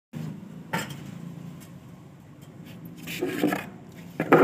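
Stainless steel utensils knocking and clattering as they are handled and set down: a clink under a second in, a rattle of metal about three seconds in, and the loudest clatter near the end.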